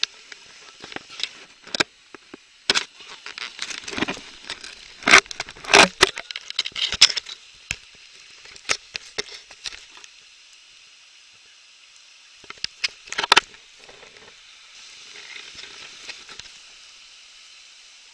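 River water rushing as a steady hiss, with a run of sharp knocks and cracks close to the camera in the first ten seconds and two more about thirteen seconds in.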